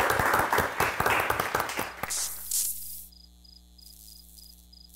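Applause and hand-clapping for about two seconds, ending in a short whoosh. After that comes faint, evenly pulsed high chirping like crickets, about four chirps a second, over a low hum.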